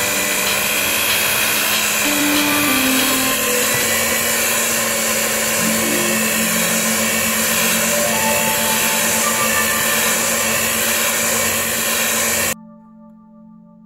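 Electric hand mixer running steadily, its beaters whipping cream cheese and powdered sugar into frosting in a glass bowl; it stops abruptly near the end.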